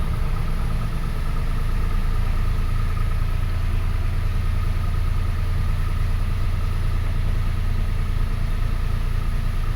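2005 Toyota Passo's engine idling steadily. The car has an intermittent stalling and no-start fault, but at this point it is running fine.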